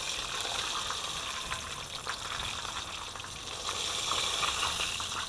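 Hot oil sizzling in a small frying pan around a battered mullet fillet, a steady hiss that swells slightly near the end, with a few faint clicks of a fork working in the pan.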